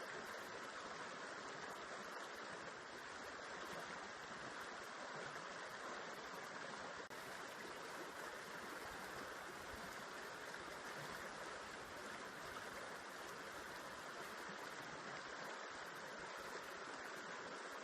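River water flowing steadily, an even rushing sound.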